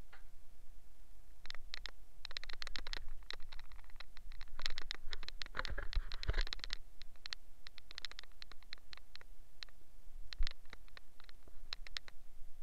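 Irregular scratching and scraping with quick clicks as a wet, foamy tyre is rubbed and scrubbed by hand, thickest and hissiest around the middle.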